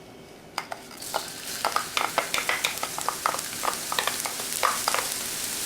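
Minced garlic frying in hot ginger-infused oil in an electric wok, starting to sizzle about half a second in, while a spatula stirs it with many quick scrapes and taps against the wok. The garlic is being cooked until lightly browned.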